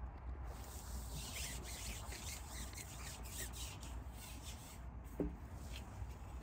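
Wind rumbling on the microphone, with a few seconds of rustling and rubbing as the angler moves and handles his fishing pole, and a short squeak about five seconds in.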